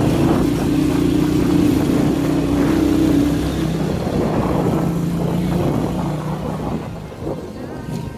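Motorcycle engine running steadily while riding over a rough, potholed concrete road, with road and wind noise. The engine note eases off about halfway through, and the sound grows quieter near the end.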